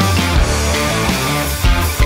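Background rock music with distorted guitar and a steady drum beat.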